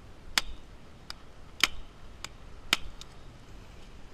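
Sharp knocks, about five in three seconds at an uneven pace, from pounding a freshly caught red snapper on the head against the rock to finish it off.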